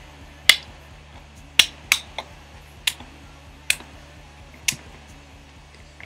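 A series of sharp clicks and light knocks, about seven at uneven spacing, from handling a plastic baby oil bottle and a drinking glass.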